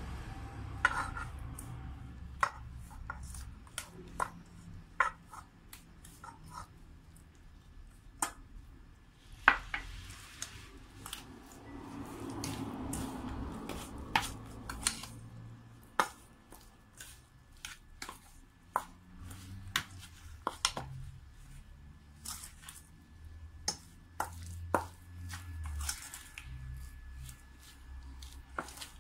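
A metal spoon clinking and scraping against a stainless steel mixing bowl while stirring crumbly dough: irregular sharp clicks and knocks, a few louder than the rest.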